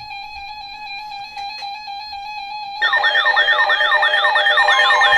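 Weather alert radio sounding an alert. A steady electronic tone runs first. About three seconds in, a loud siren-like warble cuts in, with pitch sweeps repeating a few times a second. It marks the start of a new severe weather warning broadcast.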